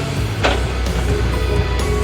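Loud rock-style background music with steady bass notes and a sharp hit about half a second in.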